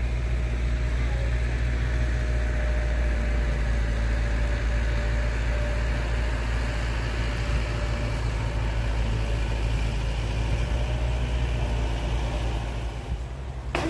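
Lawnmower engine running steadily at a constant speed, a low even hum.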